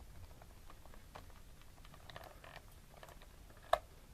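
A small screwdriver undoing the screw on the plastic battery cover of a remote-control helicopter's controller: faint scattered ticks and creaks, with one sharper click near the end.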